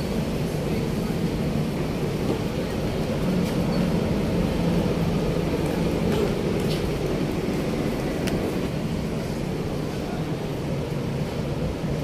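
Steady city street traffic noise: the low rumble of road vehicles' engines and tyres, with a few faint clicks.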